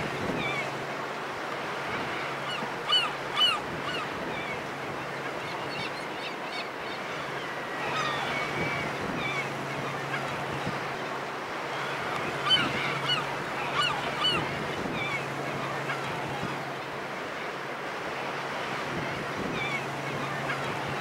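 A flock of large gulls (goélands) calling around a fishing boat, short, harsh overlapping calls in bursts: the loudest about three seconds in, more around eight seconds and from twelve to fifteen seconds. Underneath is the steady wash of the sea.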